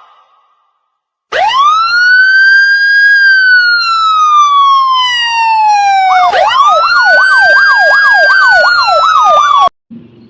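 Electronic escort siren (patwal sirine) sounding loudly. A wail rises and then slowly falls, switches about six seconds in to a fast yelp of about two and a half sweeps a second, then cuts off suddenly.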